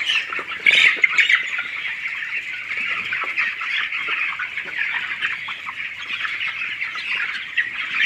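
A large flock of white broiler chickens, about three weeks old, calling all at once in a dense, steady chorus of high-pitched chirps and calls, with a few louder calls in the first second.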